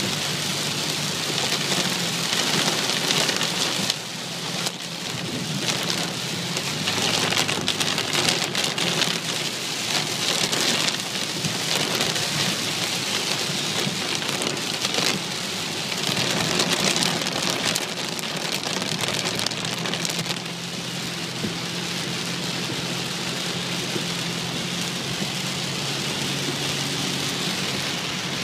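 Heavy rain pouring onto a moving car, heard from inside the cabin as a dense hiss, with a faint low hum from the car beneath it. The downpour swells and eases repeatedly, then settles a little quieter and steadier after about twenty seconds.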